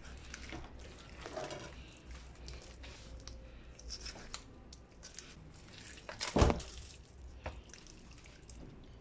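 Wet squelching and scraping of a raw whole chicken's meat being cut and pulled away from the breastbone with a knife, with small clicks and one sharp knock about two-thirds of the way through.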